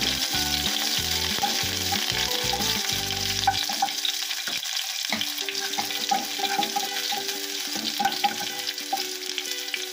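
Sliced shallots, curry leaves and dried red chillies sizzling in hot oil in a pot as a wooden spatula stirs them, with small scrapes and taps against the pan: the tempering (seasoning) stage, after the mustard seeds have popped.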